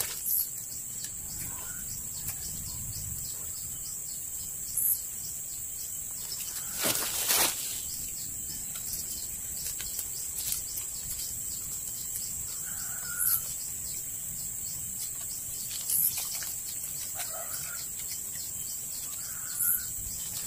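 Outdoor ambience of a steady high insect drone with a few short bird chirps scattered through it. About seven seconds in there is one brief rustle from the plastic tying strip being handled while wrapping a graft.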